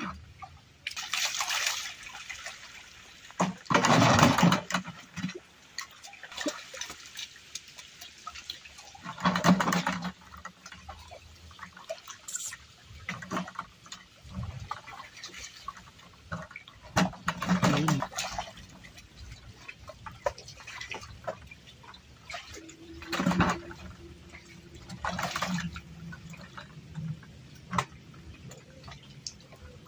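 Shallow stream water splashing and sloshing as a dense mass of eel-like fish thrashes and is grabbed by hand, with several louder splashes a few seconds apart over a lower continuous wash of water.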